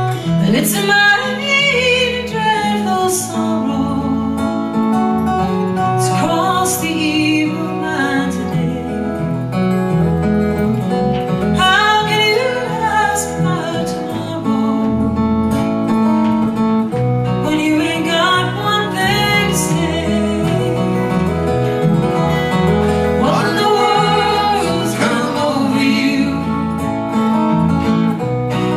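Country music: acoustic guitar accompaniment with a gliding melody line over it.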